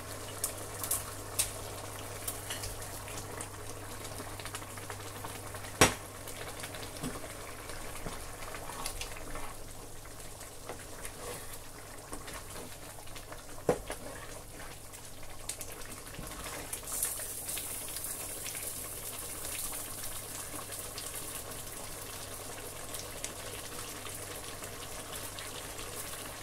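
A pot of egusi soup bubbling on the stove as pieces of meat are tipped in and stirred with a wooden spoon, over a steady low hum. Sharp clatters of bowl and spoon against the pot, loudest about six seconds in and again about fourteen seconds in.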